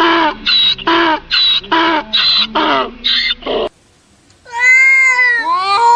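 A run of short, rapid animal calls, about two a second, then after a brief gap a cat meowing in long meows that rise and fall in pitch.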